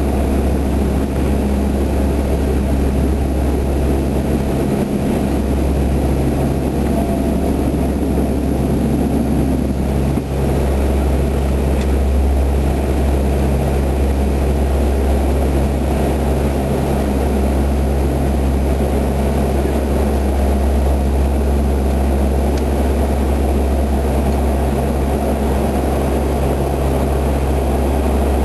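C-130 Hercules' four turboprop engines at takeoff power, heard from inside the cockpit: a loud, steady propeller drone with a deep hum through the takeoff roll, liftoff and banking climb.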